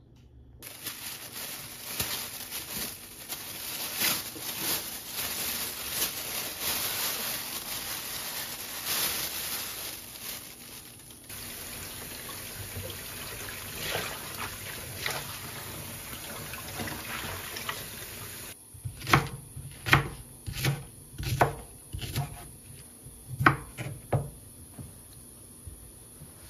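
Tap water running into a glass bowl in a stainless-steel sink while hands swish and squeeze soaked siraegi (dried radish greens), splashing. About eighteen seconds in the water stops, and a kitchen knife cuts through potato and green onion on a wooden cutting board: about ten sharp, irregular knocks.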